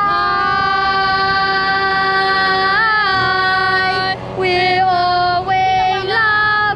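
A high voice singing long held notes, with a brief wavering about three seconds in and a short break just after four seconds before the note is taken up again.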